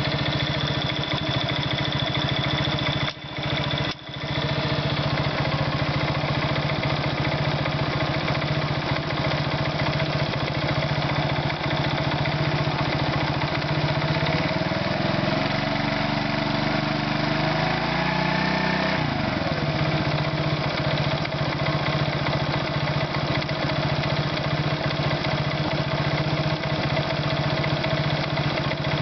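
Irbis Virago 110 moped's single-cylinder four-stroke engine idling with a knock in the engine, revved up once near the middle and let back down to idle.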